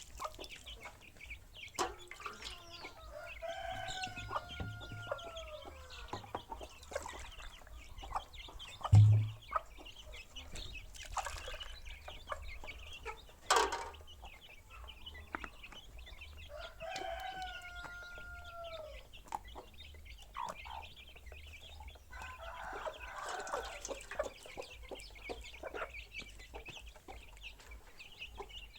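A rooster crowing twice, one long call about three seconds in and another about halfway through, each ending in a falling note, with chickens clucking around it. A dull thump comes about nine seconds in.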